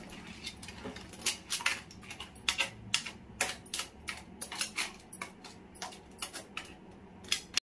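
Steel spoon clinking and scraping against a metal kadai while stirring a watery crab curry: an irregular run of sharp clicks, a few a second.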